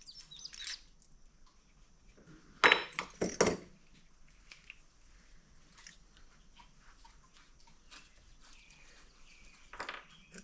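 Handheld tools and metal parts clinking and knocking while a new handle is fitted to a Husqvarna 326L string trimmer. There is a loud clatter of several sharp knocks about three seconds in, a shorter clatter near the end, and scattered light ticks in between.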